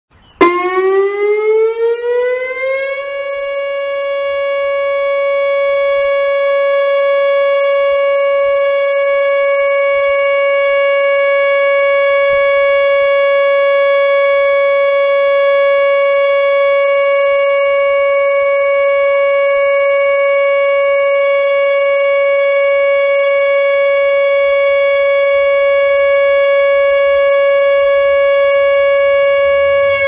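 Pole-mounted nuclear power plant warning siren sounding its weekly test. It winds up in pitch over the first few seconds, then holds one steady tone, unbelievably loud.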